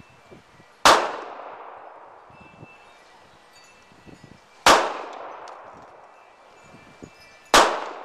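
Three handgun shots fired slowly, about three to four seconds apart, each followed by a short echoing tail.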